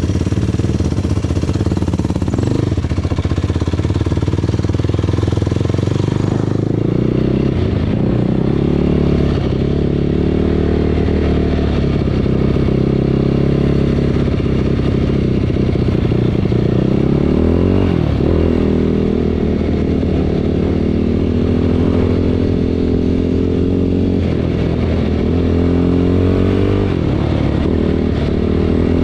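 A motor vehicle's engine running continuously, its pitch dropping and climbing again several times as it revs.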